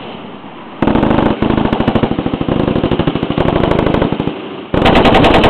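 M240B 7.62×51 mm belt-fed machine gun firing long automatic bursts: a rapid, even string of shots lasting about four seconds that starts about a second in, then another burst near the end.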